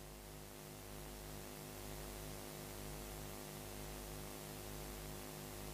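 Low, steady electrical mains hum with faint hiss from the venue's sound system, heard while the stage is otherwise silent.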